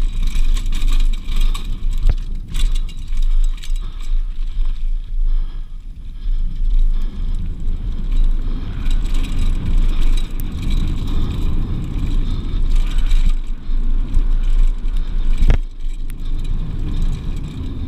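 Mountain bike rolling fast down a dirt trail: wind buffeting the microphone over the rumble and rattle of tyres and frame on the rough ground, with a few sharp knocks from bumps.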